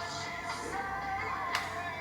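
Background music with a wavering melody line, and one sharp click about one and a half seconds in.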